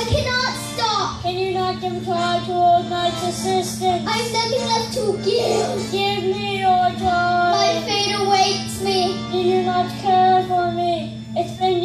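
Child singing a slow melody in long held notes over musical accompaniment, with a steady low hum underneath.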